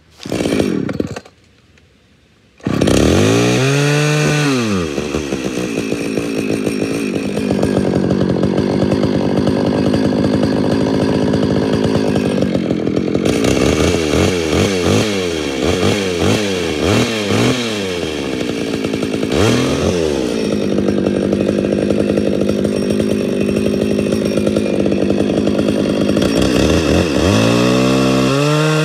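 Homelite 240 two-stroke chainsaw starting up about three seconds in after a brief first burst, then running hard. It is revved in a quick series of throttle blips, drops to a lower speed, and opens up again near the end as the bar goes into a log. The carburettor is known to be out of tune.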